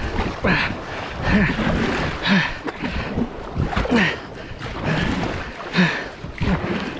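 Kayak paddle strokes splashing in river water in a steady rhythm, about one stroke every second and a half to two seconds, with wind on the microphone.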